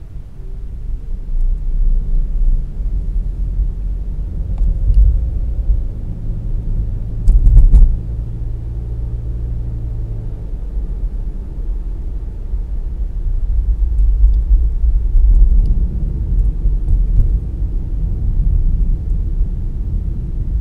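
A car driving on city streets: low, steady road and engine noise, with a louder thump about seven and a half seconds in.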